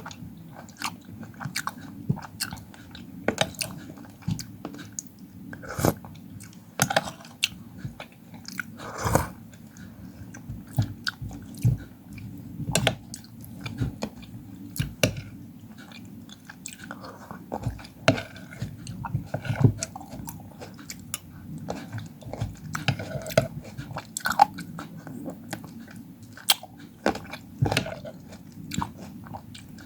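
Close-miked eating: bites and crunchy chewing of fruit, with irregular crisp clicks and wet mouth sounds.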